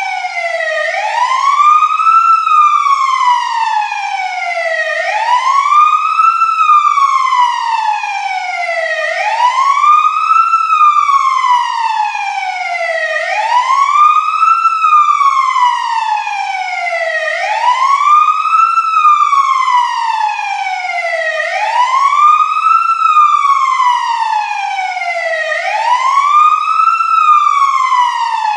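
Fire truck siren wailing: the pitch rises quickly, then falls more slowly, in cycles that repeat about every four seconds.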